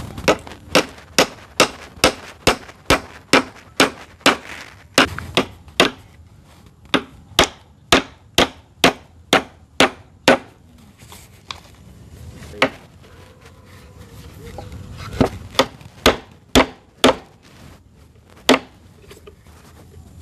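A hand tool striking wood in repeated sharp blows, about two and a half a second, in runs broken by short pauses. The blows thin out to a few single strikes in the second half.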